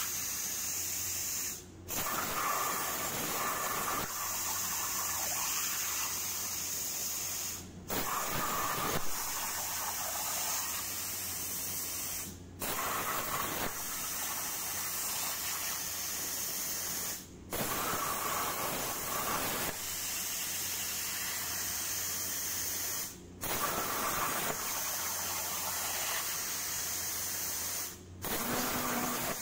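Hypertherm Powermax85 plasma cutter's arc cutting 10-gauge steel on a CNC table: a steady hiss that cuts out for a moment about every five seconds. Each break is the arc shutting off between cut-outs, and each time it restarts with a brief sharper burst as the torch pierces the sheet again.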